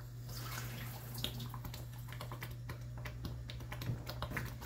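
Thick tomato meat sauce bubbling in a stainless steel pan on the cooktop: scattered, irregular soft pops and ticks over a steady low hum.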